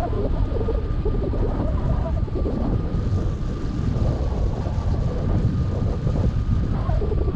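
Rushing airflow of a hang glider in flight buffeting the microphone: a loud, steady low rumble, with a faint, steady high tone running through it.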